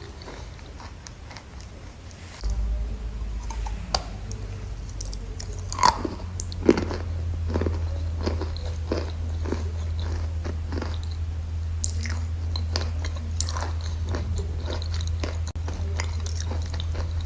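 Chalk crunching close to the microphone: many sharp, irregular crackles and snaps, with a steady low hum coming in about two seconds in.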